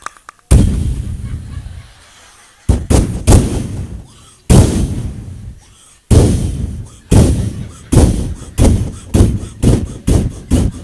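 Bedug, the large mosque drum, beaten with deep booms that each ring on. The booms start about two seconds apart and speed up to about two a second. This is the drumming that signals the coming call to prayer.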